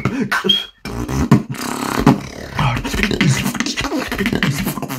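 Solo beatboxing: a dense stream of percussive mouth sounds over low vocal bass tones, with a brief break a little under a second in.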